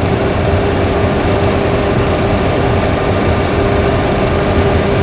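Steady cockpit background noise: a constant hum with an even whir of ventilation and equipment fans, unchanging throughout.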